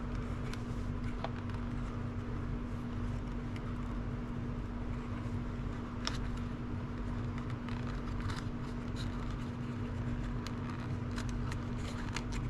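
Steady low electrical or machine hum with scattered light clicks and taps of small parts and connectors being handled.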